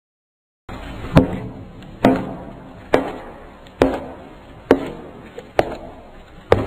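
Footstep sound effects: seven sharp steps at an even, unhurried pace of a little more than one a second, starting about a second in after a moment of silence.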